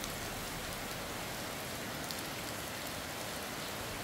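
Steady, even background hiss with no distinct knocks, tones or rhythm.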